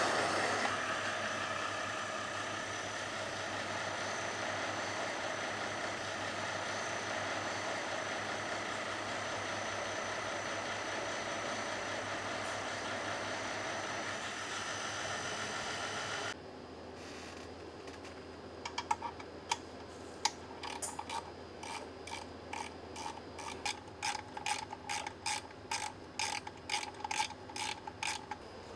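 MAN truck diesel engine starting and running steadily on an engine test bench, a steady mechanical hum with a few held tones, which cuts off suddenly partway through. After that comes a quieter, irregular run of quick metallic clicks as a technician works on the engine.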